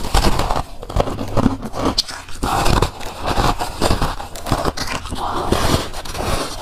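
A person biting into and chewing a hand-held chunk of powdery freezer frost, close up: crunching and squeaky crackling, bite after bite.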